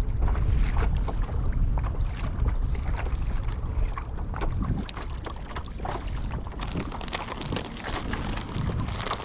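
Wind buffeting the microphone as a low rumble that eases about halfway, with water lapping and splashing against the hull of a Hobie Lynx kayak.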